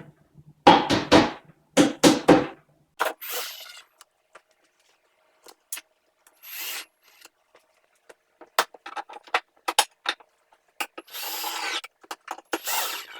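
Wooden pieces being handled and fitted together: a cluster of loud knocks early on, then scattered clicks and several short stretches of scraping and rubbing.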